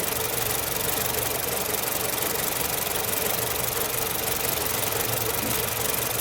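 Nissan Platina engine idling steadily while one cylinder's ignition coil fires into an external spark tester, so that cylinder is not firing, during a check for a misfire.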